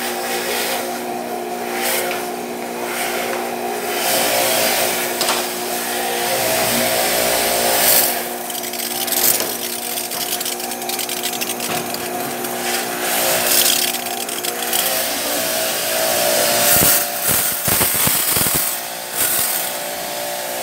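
Motor of an air-conditioner cleaning machine running steadily, with a fluctuating hiss of water spray as the mouldy cooling fins of a ceiling cassette air conditioner are washed. A few sharp clicks come near the end.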